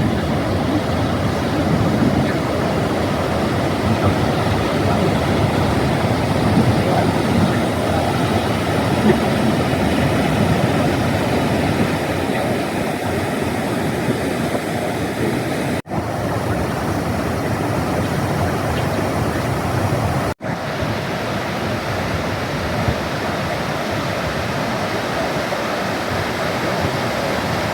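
Steady rush of fast-flowing mountain water, a cascading stream, which breaks off for an instant twice.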